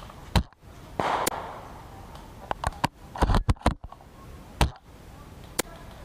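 Bolt-action spring airsoft sniper rifle being handled and cycled: sharp single clicks and knocks, a short burst of noise about a second in, and a quick cluster of clicks near the middle.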